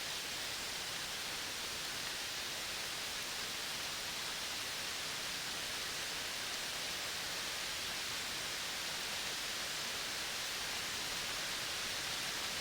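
Steady outdoor nature ambience: an even, unbroken hiss, brightest in the upper-middle range, with no distinct calls or clicks standing out.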